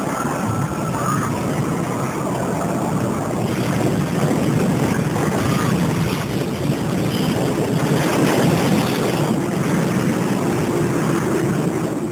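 Tsunami floodwater surging and crashing in a loud, dense roar that grows louder about four seconds in.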